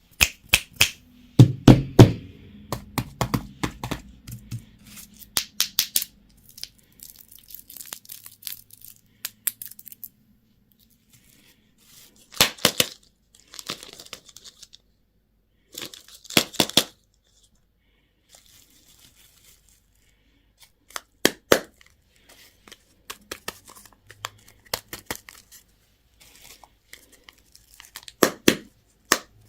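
Candy and toy packaging being torn open and crinkled by hand, in bursts of sharp crackles with short pauses between them, busiest in the first few seconds.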